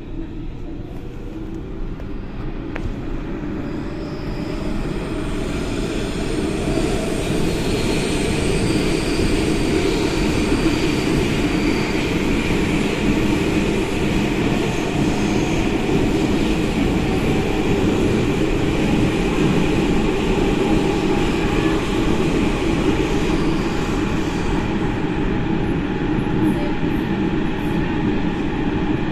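Athens Metro Line 3 train running through a tunnel, heard from inside the car: a dense rumble of wheels and running gear that grows louder over the first eight seconds or so, then holds steady, with a faint high whine above it.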